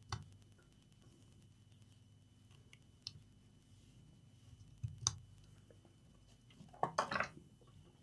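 Faint clicks and handling noises from small items on a repair bench, three short distinct clicks among them, over a steady low hum and a thin high tone. A brief rustle comes near the end.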